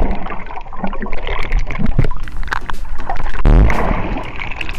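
Muffled underwater sound from a submerged camera: bubbles and water moving, with irregular clicks and a dull thump about three and a half seconds in.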